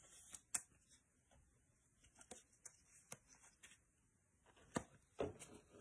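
Near silence broken by a few faint clicks and light plastic rustles as a trading card is handled and slid into a clear plastic card holder.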